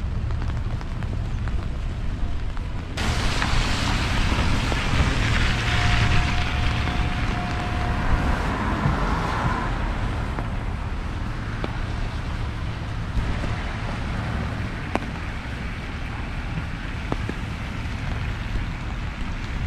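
Traffic on a wet street with tyres hissing, under a steady low rumble, and rain falling on an umbrella overhead. A vehicle hisses past from about three seconds in, loudest in the middle with a brief steady whine, and fades out by about thirteen seconds. A few single raindrop ticks follow.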